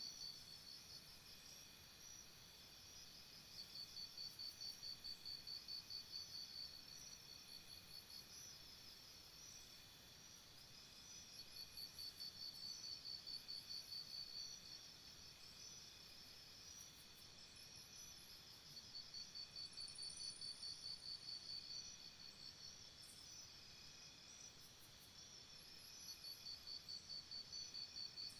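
Faint crickets chirping in the night air: one nearer cricket sings spells of rapid chirps, about four a second for two or three seconds, repeating roughly every seven seconds, over a steady background of fainter crickets chirping.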